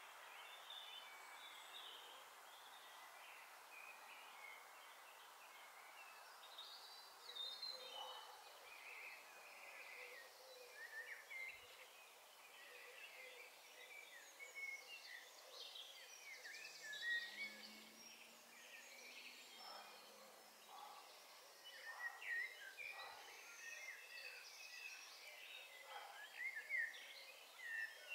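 Faint chorus of birds chirping and calling, several at once and overlapping, over a steady background hiss. The calls grow busier from about a quarter of the way in.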